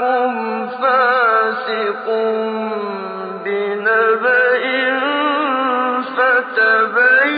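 A single male voice reciting the Quran melodically, in long drawn-out notes ornamented with quick wavering turns.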